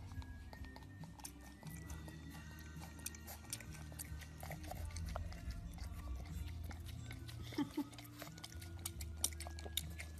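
Pug licking and eating yogurt from a plastic tub: a run of quick wet smacking and lapping clicks, thicker in the second half, with music underneath.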